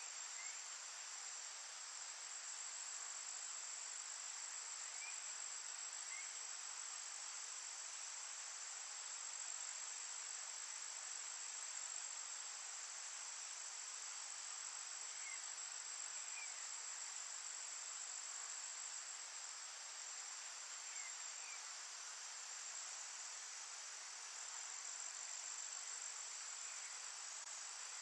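Steady chorus of crickets or similar insects, a continuous high-pitched trill over soft forest hiss. Faint short chirps come in pairs every few seconds.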